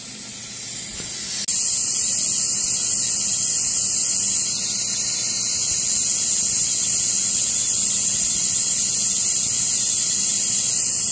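Loud, steady hiss of compressed air blowing dust away from the running 11 HP HSD spindle of a CNC router, with the spindle itself quiet underneath. The hiss jumps louder about a second and a half in.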